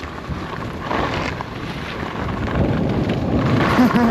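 Wind buffeting the microphone of a skier's action camera during a run, with skis sliding and scraping over snow.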